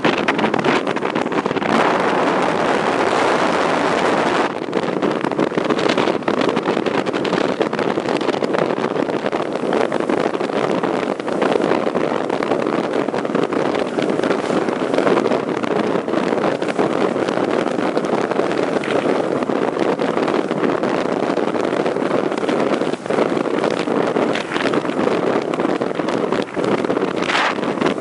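Wind rushing over the microphone: a loud, steady rush of noise with frequent brief gusts and buffets.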